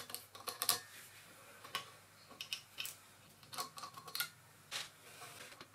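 Thin steel washers and a nut clicking and clinking as they are worked off a bent motor-mount stud by hand: a scattering of light, irregular metallic ticks and taps.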